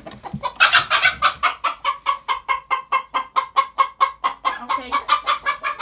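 A chicken clucking rapidly and loudly in an even series, about five or six clucks a second, starting about half a second in.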